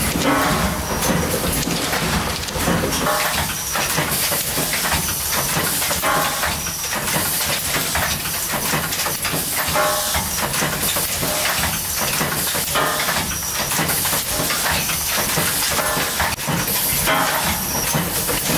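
Vertical cartoning machine running while it packs cosmetic tubes into folding cartons: a steady mechanical hiss and rattle, with a clattering stroke repeating about every second and a half.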